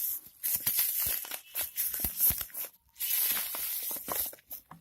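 A small cardboard phone box being opened by hand: packaging tearing and crinkling in short crackly strokes, with a brief pause about three seconds in.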